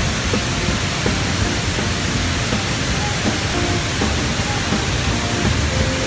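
Steady rush of heavy water pouring down a tall man-made waterfall close by, with faint background music over it.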